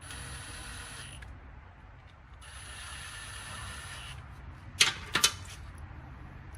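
Ratchet wrench clicking in two quick runs on a lawnmower engine's fastener, then two sharp metallic clacks about five seconds in.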